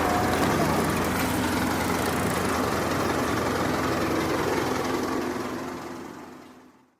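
Diesel engine of heavy construction machinery running steadily, fading out near the end.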